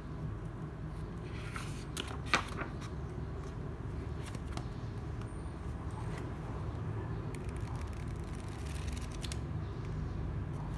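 Steady low background rumble with scattered rustles, scrapes and clicks of a hardcover notebook and its packaging being handled; a sharp click about two seconds in is the loudest sound.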